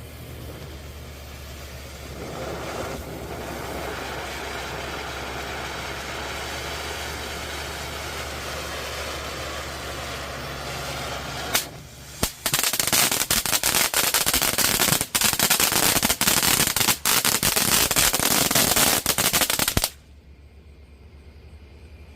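Firework fountain (Pyro Patrick by Miracle) burning: a steady hissing spray for about ten seconds, then a loud stage of rapid crackling pops for about seven seconds that cuts off suddenly. A low steady hum runs underneath.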